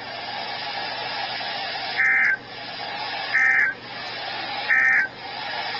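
NOAA Weather Radio sending the EAS/SAME end-of-message data burst three times, marking the end of a tornado warning: three short electronic buzzes about a second and a half apart, over steady radio hiss.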